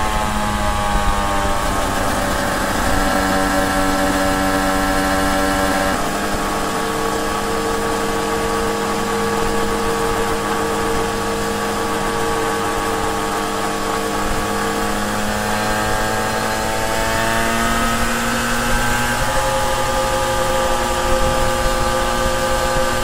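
1993 Suzuki RGV250 VJ22's jetted two-stroke V-twin, fitted with TYGA parts and VHM heads, running under way at steady revs. The pitch eases down at first with a small step about six seconds in, then climbs gently from about sixteen seconds before levelling off.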